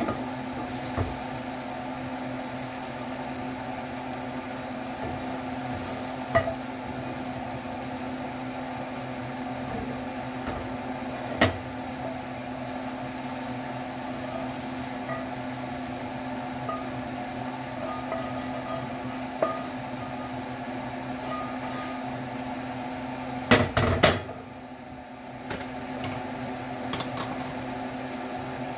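Cast iron skillet and wooden spatula scraping and knocking over a steady mechanical hum with a low tone. There are a few single knocks, then a cluster of loud metal clanks about 24 seconds in as the skillet is set back down on the gas stove's grate.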